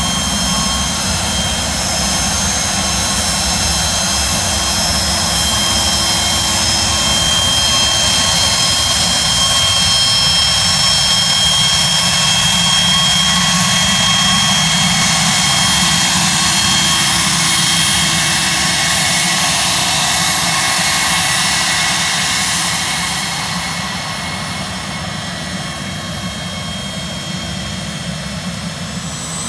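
Twin Williams FJ44 turbofan engines of a Pilatus PC-24 jet running as it taxis, a steady turbine rush with a high, multi-tone whine. Near the end the sound grows quieter and the high whine fades.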